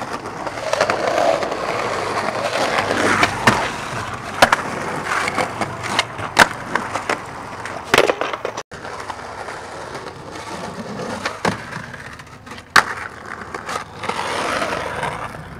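Skateboard wheels rolling over rough pavement, broken by a series of sharp wooden clacks as the board's tail pops and the deck lands on the ground.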